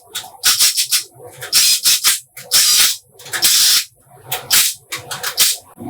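Repeated hand rubbing strokes on a part, like sanding or scrubbing: a string of short rasping strokes, with two longer strokes of about half a second each in the middle.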